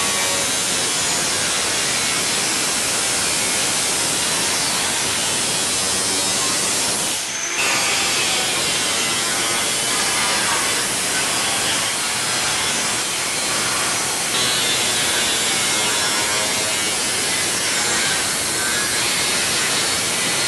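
Angle grinder cutting through the steel bodywork of a classic Mini, a loud, steady grinding with a brief break about seven seconds in. This is the cutting away of the door frame and roof pillars in a cabriolet conversion.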